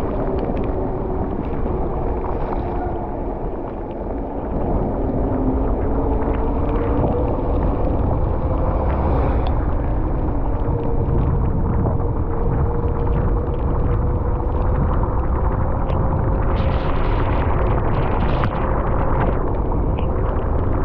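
Mountain bike descending fast on wet asphalt: wind buffeting the microphone and the knobby off-road tyres hissing and humming on the road, the hum slowly rising in pitch as the speed builds.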